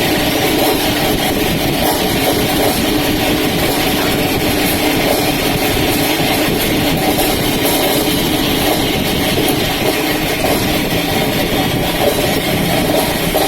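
Electric spinner, a centrifugal oil-draining and drying machine, running with its basket spinning: a loud, steady mechanical noise that holds even throughout.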